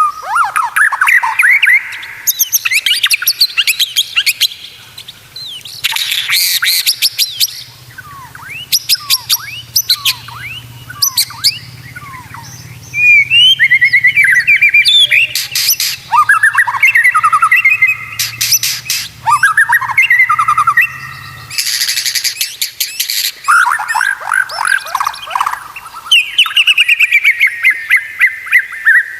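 White-rumped shama (murai batu) singing a long, varied song. Rapid trills, whistled glides and sharp chattering notes follow one another with hardly a pause.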